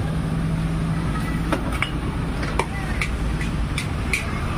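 Gas wok burner running with a steady roar, while a metal spatula strikes and scrapes a steel wok in a run of about seven sharp clinks from about a second and a half in.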